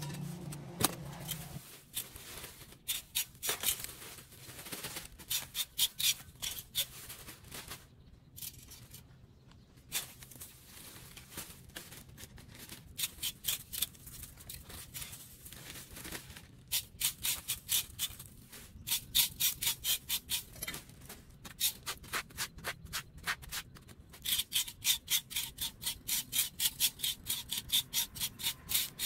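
Broom bristles and a small hand rake scraping dry leaves and grit across concrete pavement in quick repeated strokes, coming in runs of up to about three strokes a second with short pauses between.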